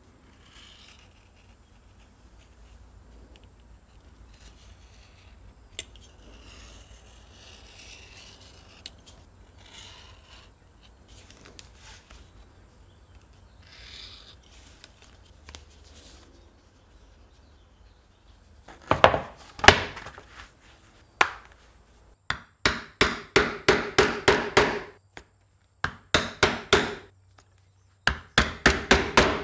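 Faint scraping of a thin metal hand tool drawn along the edge of a leather card wallet. About two-thirds of the way in, a mallet starts striking a pricking iron through leather in quick runs of loud knocks, punching stitching holes.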